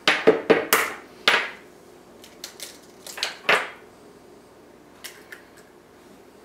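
An egg being cracked on the rim of a small glass bowl, with glass bowls clinking on a tile counter: a quick cluster of sharp clinks and taps in the first second and a half, then a few lighter taps about three seconds in, and faint ticks near the end.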